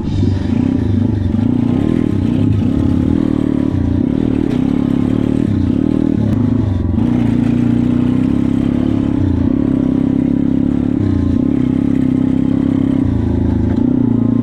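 140cc pit bike engine running under way, its pitch wavering up and down with the throttle in the first half, then holding steadier.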